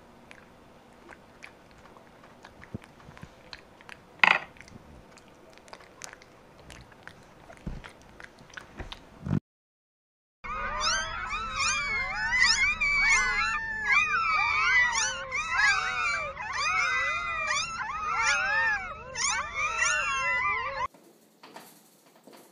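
A litter of newborn puppies squeaking and crying all at once, many high overlapping cries for about ten seconds, stopping abruptly. Before it come faint scattered clicks and taps with one sharper knock.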